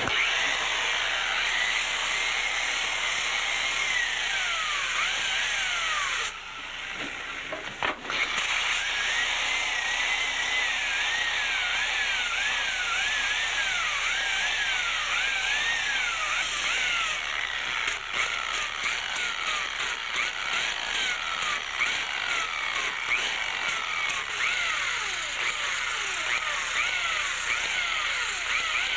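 Power sander smoothing dried Q-cell filler on a surfboard's fin area. Its pitch dips and rises over and over as it is worked against the surface. It drops away briefly about six seconds in and starts again about two seconds later.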